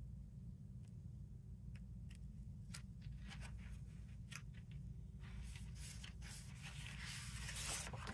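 Sheets of cardstock being handled and leafed through: a few light taps and clicks, then a steady rustle of paper sliding over paper for the last three seconds or so.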